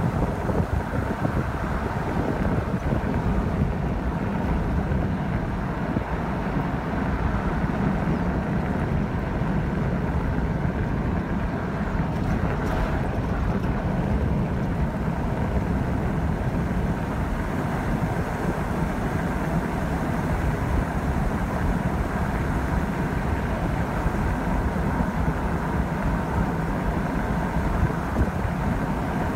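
Steady road noise of a car travelling at highway speed, heard from inside the vehicle, with wind rumbling on the microphone.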